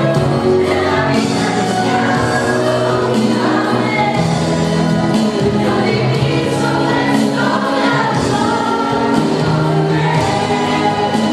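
Choral music: a choir singing long held notes over an instrumental backing.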